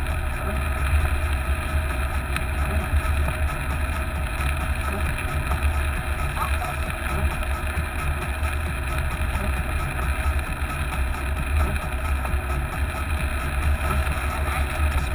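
Hummer H2 driving on a wet road, heard from a camera mounted on the vehicle: a steady low rumble of engine and road noise with a constant rushing haze of tyres and air over it.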